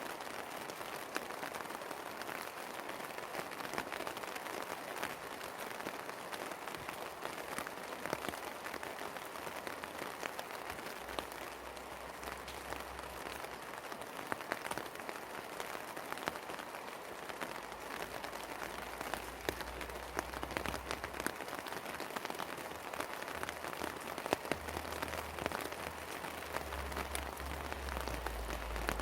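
Steady rain falling, with many separate drops ticking close by over an even hiss.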